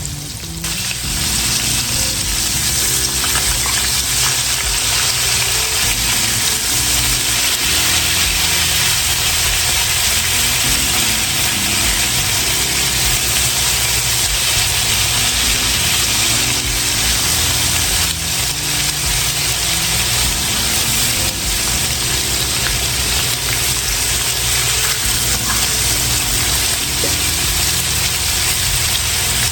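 Breaded chicken tenders frying in hot oil, a steady sizzle.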